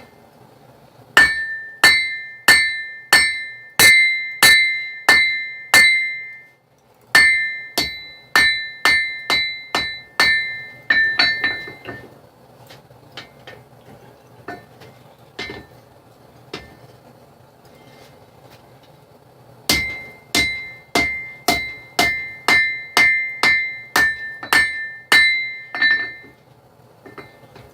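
Hand hammer striking a steel knife blank on the anvil in steady runs of about two blows a second, each blow ringing with a clear metallic tone; the smith is drawing out the knife's tang. A long pause in the middle holds only a few lighter taps.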